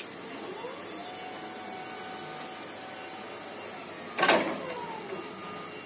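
Electric reach truck's motor whining as it spins up in the first second and then holds steady, with a loud short clatter about four seconds in followed by a falling whine.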